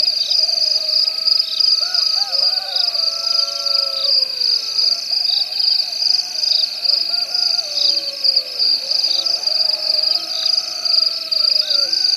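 Night-time animal chorus: a steady high-pitched trill with a regular pulse about once a second, with wavering, gliding calls rising and falling over it.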